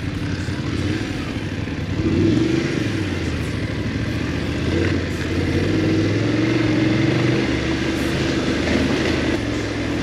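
BMW F850GS's parallel-twin engine running under throttle, its pitch climbing about two seconds in and then easing up and down with the throttle, over a steady rushing noise.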